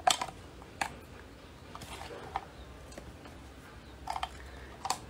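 Wooden chopsticks clicking against a glass jar as shredded papaya is scraped out of it into a bowl: a few sharp, scattered taps, with a quick cluster of clicks about four seconds in.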